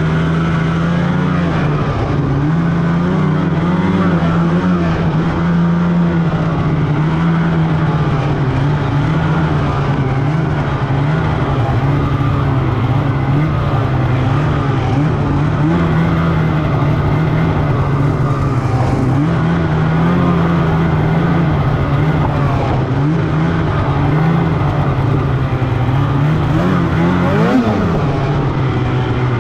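Snowmobile engine running steadily under way on a trail, its pitch drifting up and down a little with the throttle. Near the end there is one quick rise and fall in pitch.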